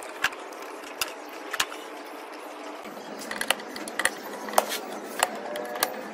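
Sharp metallic clicks and taps on a steel gearbox cover as its bolts are set in place and tightened with a hand driver: a few scattered clicks at first, then about one every half-second to second from about three seconds in.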